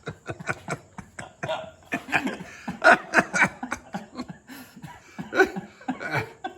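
Men laughing and chuckling, mixed with bits of indistinct talk.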